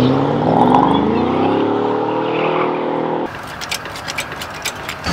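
A rally car's engine accelerating hard, its pitch rising steadily for about three seconds, then cutting off abruptly to a quieter background with scattered sharp clicks.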